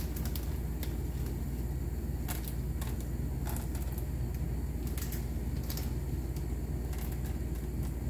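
Plastic bag of chocolate chips crinkling in the hand as chips are shaken out into muffin cups: scattered light crackles and clicks over a steady low hum.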